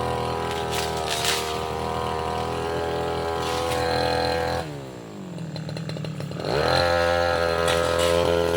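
Tasco 33 Pro two-stroke brush cutter engine running at high revs. About halfway through the throttle is released and the engine falls toward idle, then it is opened again and quickly climbs back to full speed.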